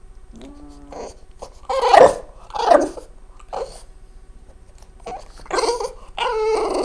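Dog making a string of odd, voice-like whining and yowling sounds at its owner: a short low moan, two loud calls about two and three seconds in, then a long wavering cry near the end.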